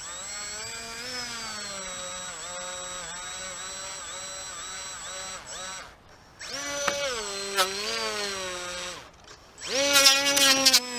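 Electric motor and propeller of an RC trainer plane being run up on the ground, its whine rising and falling with the throttle. It cuts out briefly about six seconds in and again about nine seconds in, then runs up once more near the end.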